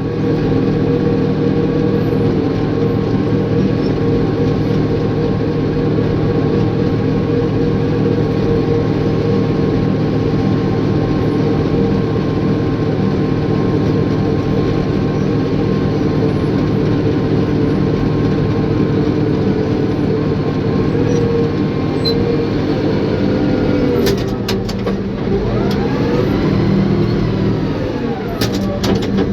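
Caterpillar bulldozer's diesel engine running steadily under load. About 24 seconds in the note shifts and a few sharp metallic knocks come through, then the pitch dips and climbs back.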